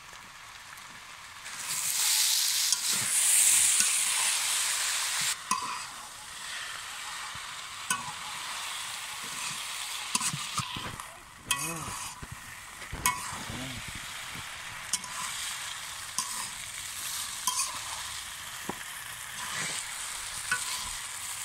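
Noodles stir-frying in a large wok: a steady sizzle, louder for a few seconds starting about two seconds in, while a metal spatula scrapes and knocks against the pan again and again as the noodles are tossed.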